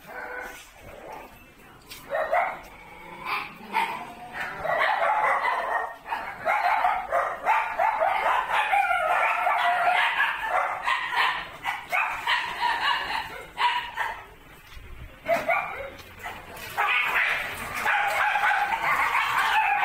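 A pack of dogs barking and yelping together, many voices overlapping, with a brief lull about two-thirds of the way through.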